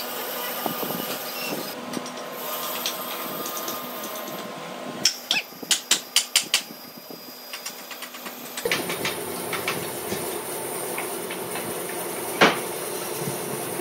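Wooden boards knocked and set down on a workbench: a quick run of about six sharp knocks around five seconds in, then one louder knock near the end, over a steady workshop hum.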